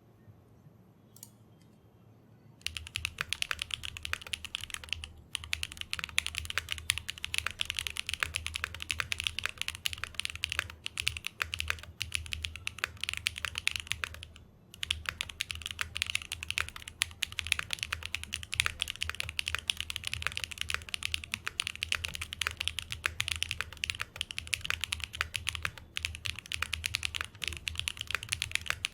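Fast continuous typing on a Matrix Corsa mechanical keyboard with Gateron Type-R switches and GMK keycaps on an aluminium plate. Its stabilizers are lubed and a tape mod is fitted to the case. The typing starts about two and a half seconds in after a couple of faint clicks, and pauses briefly about halfway through.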